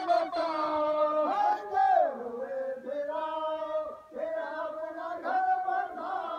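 Men chanting a noha, a Shia mourning lament, with the lead voice amplified through a hand-held microphone and loudspeaker. The lines are long held notes that rise and fall, with short breaks between phrases.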